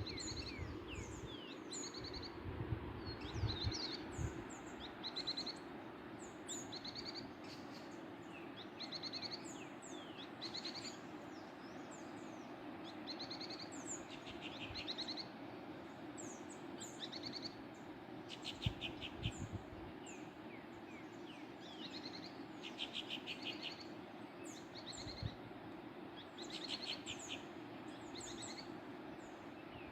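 Many small birds chirping and trilling in quick short calls over the steady rush of a waterfall, with a few brief low rumbles.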